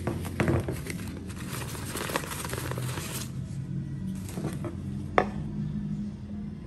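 Handling sounds of an unboxing: crackly rustling and light clicks for the first three seconds, then a single sharp click about five seconds in, over soft background music.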